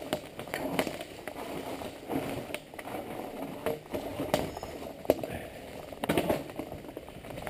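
Mountain bike descending a forest trail: tyres rolling over dry fallen leaves and rocks, with irregular knocks and rattles from the bike over the bumps.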